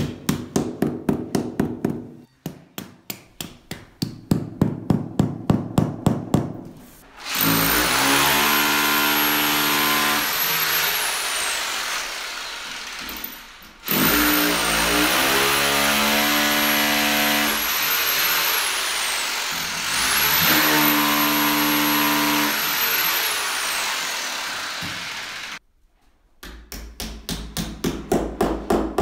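Quick runs of hand-hammer blows, about four a second, driving nails through soundproofing panels into the wall. About seven seconds in, an electric drill runs three times for about six seconds each, drilling through a panel, its pitch climbing as it spins up. Near the end, another quick run of hammer blows.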